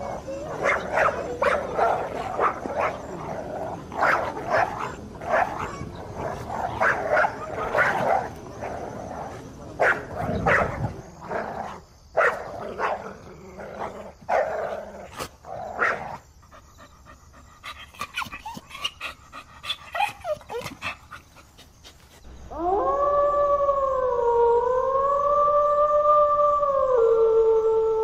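Dogs yipping and barking in quick short calls, several a second, which fade to a few faint calls in the middle. Then a dog howls one long call that rises, holds, and drops lower near the end.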